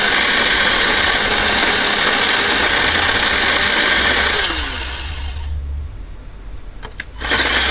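Small cordless electric chainsaw making the back cut of a felling cut in a dead oak, running steadily with a high whine. About four and a half seconds in the trigger is let go and the motor winds down to a stop without idling, then it starts cutting again near the end.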